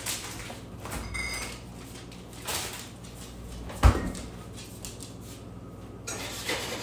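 Kitchen handling noise: scattered light knocks and clatter, with a brief faint high beep just after a second in and one sharp thump just before four seconds, the loudest sound.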